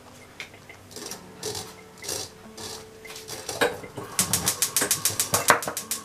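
Greens and a stainless mesh colander being handled over a ceramic plate: soft rustling swishes and a couple of knocks. Near the end comes a quick run of clicks, about ten a second, for a second and a half.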